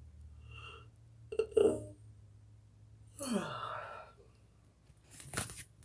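A woman yawning: short throaty voiced sounds about one and a half seconds in, then a longer one sliding down in pitch about three seconds in, and a brief sharp noisy sound near the end.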